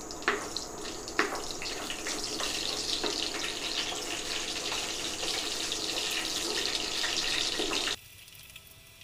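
Hot oil sizzling in a kadai as chana dal and mustard seeds fry for a tempering, with a few sharp pops in the first second or so. The sizzle grows louder after about two seconds and drops off suddenly near the end.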